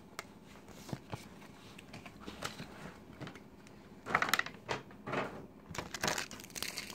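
Clear plastic packaging being handled, crinkling and clicking in scattered bursts, loudest about four to six seconds in.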